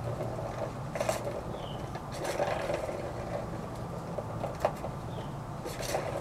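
Light plastic clatters and scrapes now and then, about four times, as a kitten paws at a ball-in-track cat scratcher toy. A few faint, short high chirps from a bird.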